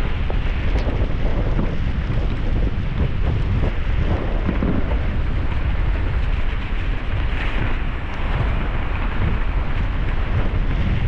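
Strong wind buffeting an action camera's microphone: a steady, heavy rumble with no let-up, mixed with scattered small clicks and knocks.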